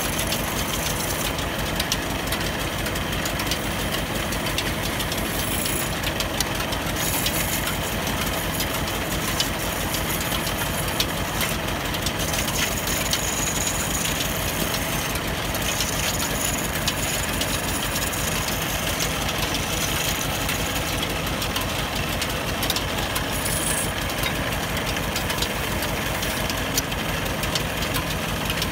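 Wood lathe running steadily with a fast, even rattle, while a hand-held chisel cuts into a spinning wooden rolling-pin blank and shaves off chips.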